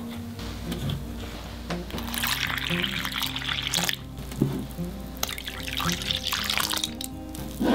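Liquid poured into a well of flour in a glass bowl, twice: first water, then a stream of milk, each a splashing trickle lasting about two seconds. Background music plays throughout.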